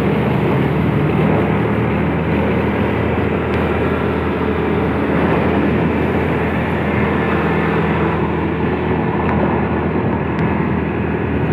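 Motor scooter riding along: a steady engine drone over road noise.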